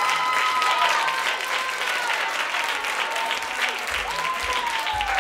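Audience applauding steadily. A few tones slide down in pitch over the clapping near the end.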